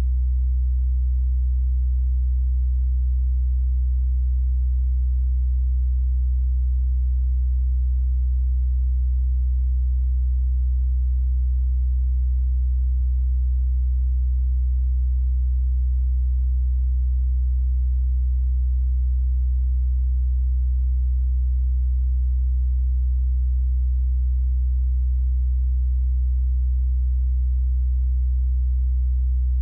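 Steady low electrical hum, constant and unchanging, with no other sound heard.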